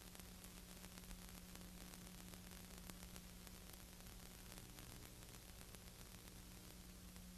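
Near silence: a steady faint hiss with a low hum and light scattered crackle, the noise floor of a silent film transfer. No race-car engines are heard.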